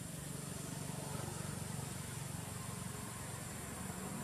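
Steady low hum of a distant engine under faint outdoor background noise.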